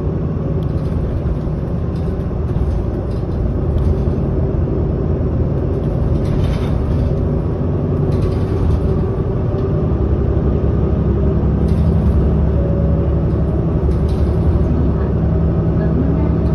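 Interior running noise of a 2007 Isuzu Erga diesel city bus under way: a steady engine and road rumble, with the engine note growing stronger and a little louder about ten seconds in.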